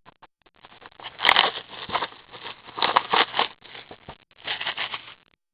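Hockey card pack being opened by hand: crinkling and tearing of the wrapper in uneven bursts, stopping shortly before the end.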